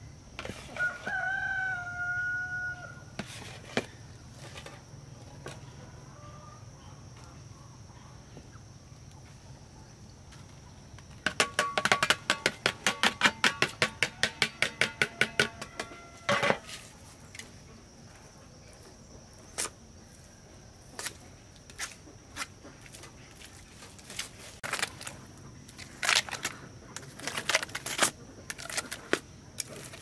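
A rooster crows once near the start. Midway comes a run of quick sharp taps, about five a second for some five seconds, and scattered knocks and scrapes follow near the end, from a small steel trowel working wet cement in a round mould.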